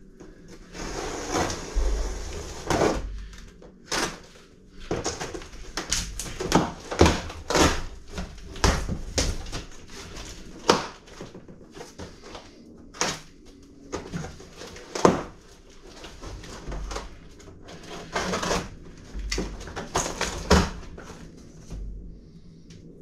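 Cardboard packaging being handled as a solar panel is unboxed and slid out of its large box. Irregular scraping and rustling, with frequent sharp knocks and a few dull thuds.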